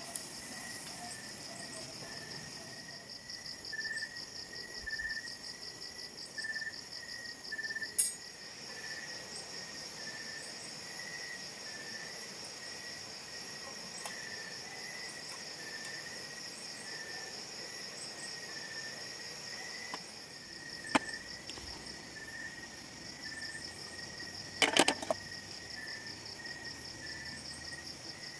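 Steady chorus of insects such as crickets: a fast, high continuous trill with a lower line of short repeated chirps. A few sharp clicks or knocks stand out over it, about eight seconds in, near twenty-one seconds, and a quick double one near twenty-five seconds.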